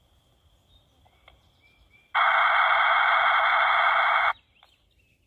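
Rattlegram digital text message coming through a Baofeng BF-88ST FRS radio: a loud, steady hiss-like data burst about two seconds long, starting about two seconds in and cutting off sharply. Faint bird chirps can be heard around it.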